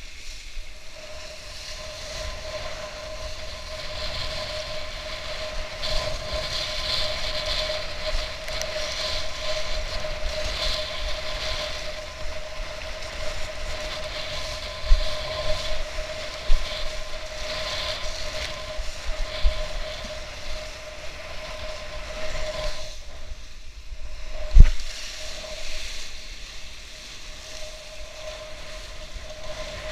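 Wind and water rushing past an action camera while kitesurfing through choppy surf, with a steady hum running under it and splashes now and then. Near the end, after a brief quieter moment, there is one heavy thump, the loudest sound.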